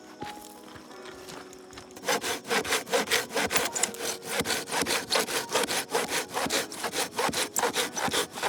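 Hand saw cutting through wood in quick back-and-forth strokes, starting about two seconds in.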